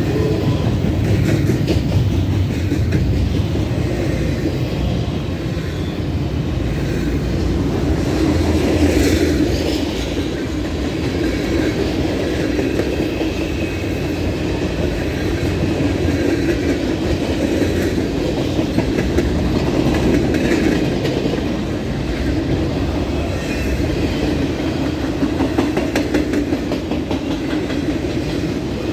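Norfolk Southern mixed freight train rolling past at trackside, its intermodal well cars, boxcars and autoracks running by as a steady rumble of steel wheels on rail, with repeated clicks as the wheels cross rail joints.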